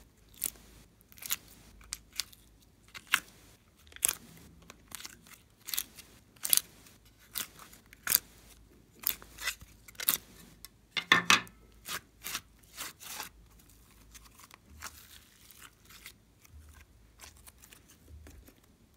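Slime being pressed, peeled out of a plastic mold and squeezed by hand, giving irregular sharp clicks and pops, with a burst of louder crackles about halfway through.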